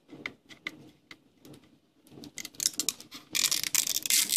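Adhesive tape on a TV box's packaging being picked at, with a few small scattered clicks, then peeled and torn away with loud crackling over the last second or so.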